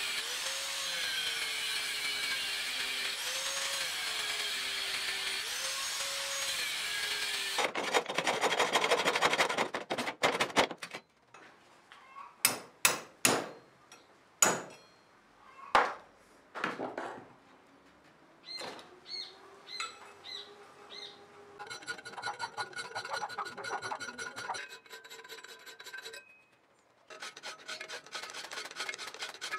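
Angle grinder working a blade blank of car leaf-spring steel, its whine wavering as it loads and recovers, then a louder stretch of grinding that stops about eleven seconds in. After that come separate sharp metal strokes and clanks, and near the end quick rasping strokes of a hand file on the steel held in a vise.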